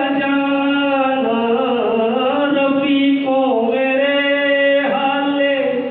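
A man singing lines of a Hindi poem into a handheld microphone, holding long drawn-out notes with slow glides in pitch.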